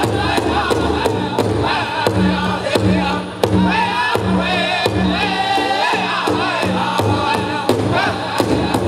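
Powwow drum group singing a chicken dance song in unison over a steady, even beat struck on a large shared powwow drum.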